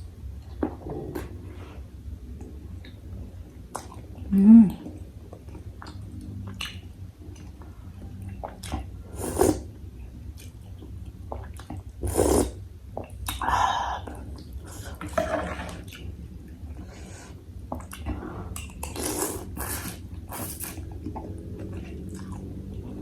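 Close-miked eating of bakso meatball soup: slurps of broth, chewing, and clicks of a spoon against the bowl. A short, loud low voiced sound comes about four and a half seconds in.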